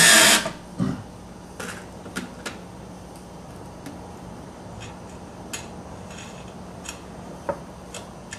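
Cordless drill driving a screw stops about half a second in, followed by a low knock and then a scatter of light metallic clicks and clinks as washers and screws are handled on the aluminum board.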